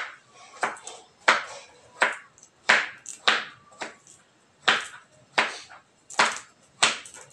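Knife cutting through a patola (sponge gourd) onto a plastic cutting board: a steady series of sharp taps, about three every two seconds.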